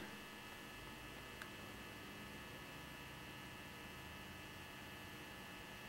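Faint, steady electrical hum with a light hiss, the room and recording's background noise, with one tiny tick about one and a half seconds in.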